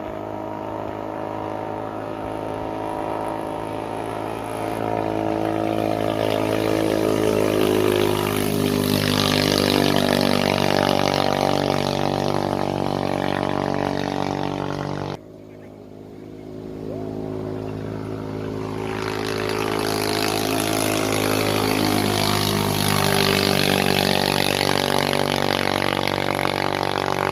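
Big-bore motorcycle engine fitted with a 92 mm piston, running steadily and getting louder about five seconds in. About fifteen seconds in the sound drops off abruptly, then builds back up over the next few seconds.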